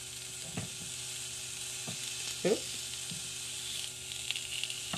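Vegetables sizzling steadily on the hot nonstick grill plate of a Starfrit Rock electric smokeless grill set on high, as zucchini slices are laid down. A few brief knocks come through, the loudest about halfway.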